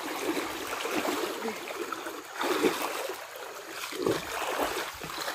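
River water sloshing and gurgling around a person wading and around a large woven bamboo fish trap as it is carried through the water, with louder splashes about two and a half and four seconds in.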